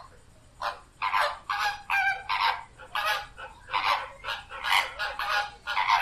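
A flock of flamingos honking: a quick series of short calls, two or three a second, varying in pitch from bird to bird.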